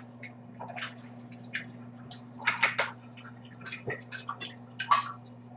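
Scattered light clicks and taps at irregular intervals, a few louder ones about two and a half seconds in and again near five seconds, over a steady low electrical hum.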